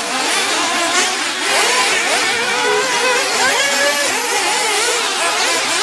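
Several radio-controlled off-road buggies racing, their small engines revving up and dropping back in overlapping, constantly shifting whines.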